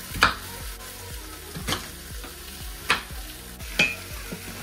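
Kitchen knife chopping an onion on a wooden cutting board: four sharp knocks about a second apart. Under them, the steady sizzle of beef stew meat browning in lard in an Instant Pot on sauté.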